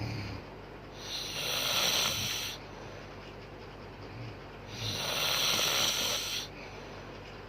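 A woman snoring in her sleep: two long, hissing breaths a few seconds apart, with a brief low snort at the very start.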